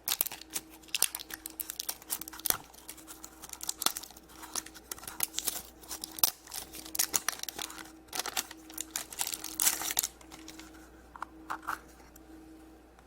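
Plastic toy packaging crinkling and tearing as it is opened by hand, in quick irregular crackles for about ten seconds, then only a few faint rustles.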